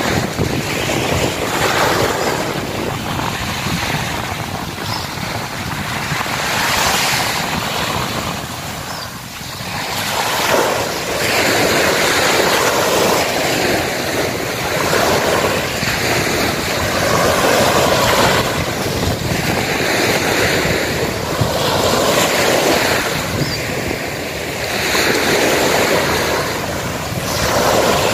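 Small sea waves washing onto a sandy beach, the surf swelling and easing every few seconds.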